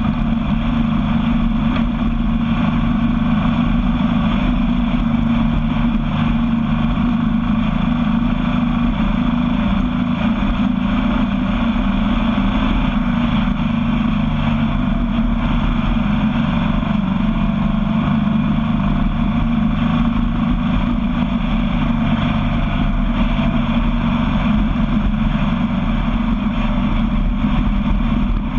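Sandrail engine running steadily at cruising speed along a dirt road, with no big revs or changes.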